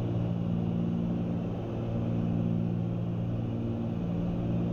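Cessna 310's twin piston engines and propellers droning steadily in cruise, heard from inside the cabin as an even hum with several steady tones.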